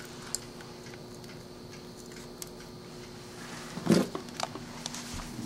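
Steel spring clamps of a battery charger being handled and clipped onto a car battery: a few light metallic clicks and a louder clatter about four seconds in, over a faint steady hum.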